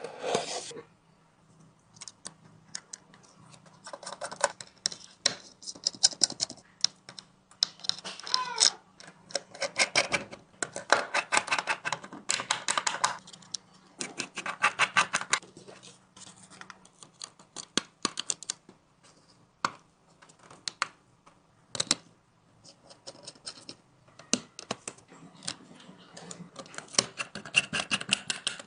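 Bursts of rapid small clicking and scraping from hand repair tools working on a phone's glass and frame during a screen and back-glass replacement, over a faint steady low hum.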